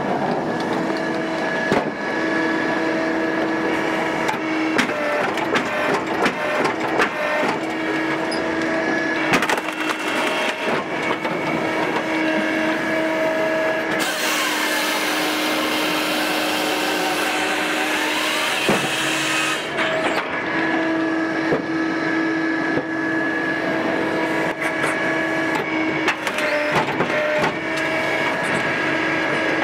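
Japa 365 Pro firewood processor running off a John Deere 2038R tractor's PTO with a steady hum, while wood cracks and snaps as a tough log is forced through the splitting knife. About halfway through, a harsher rushing noise lasts some five seconds as the saw bar cuts through the log.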